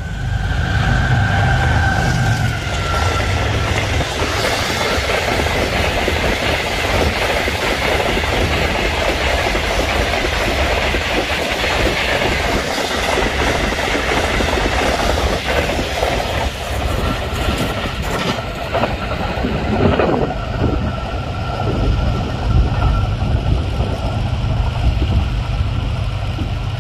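Green Line Express passenger train passing at speed: a loud, steady rush of wheels and coaches on the rails. The locomotive's horn fades out in the first couple of seconds.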